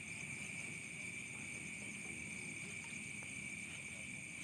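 Night insects chirring steadily: a constant high-pitched chorus that holds an even pitch and level.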